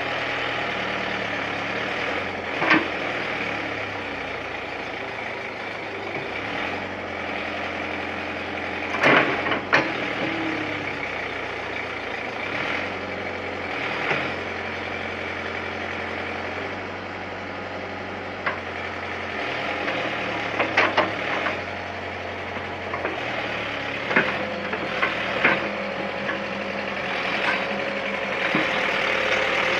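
Kato HD250 excavator's diesel engine running steadily, with sharp knocks now and then. A steadier, higher tone joins the engine sound near the end.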